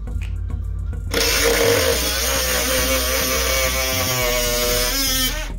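Small cordless Ryobi cut-off tool running and cutting into a plastic air intake housing, starting about a second in and stopping sharply just before the end, with a steady whine over the grinding noise of the disc in the plastic.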